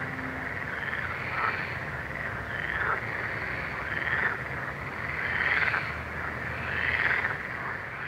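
Frogs calling in a chorus: arching calls repeat about every second and a half over a steady haze of other calls.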